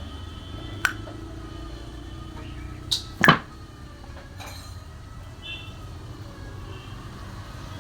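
A few sharp metallic clinks and knocks, the loudest pair about three seconds in, from work on a motorcycle cylinder head. Under them runs a steady low hum.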